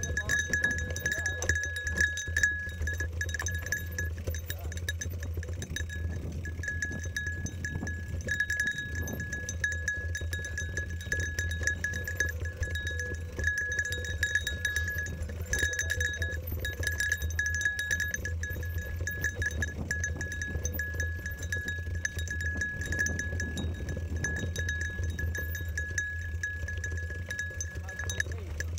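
Mountain bike rolling down a dirt trail: a small metal bell-like ringing jingles on and off with the bumps, over a steady low rumble of tyres and wind.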